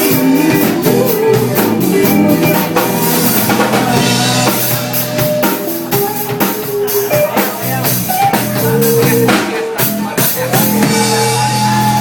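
A band playing music with a drum kit and guitar.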